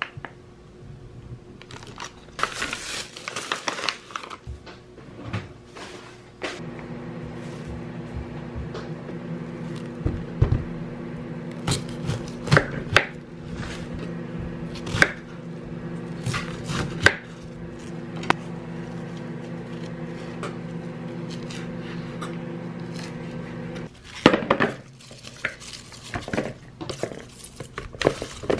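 Kitchen knife cutting soft blood sausage and cabbage on a wooden cutting board, with irregular knocks of the blade on the board and a crinkle of plastic wrap near the start. A steady hum of unknown source sits under the cutting from about six seconds in and stops about four seconds before the end.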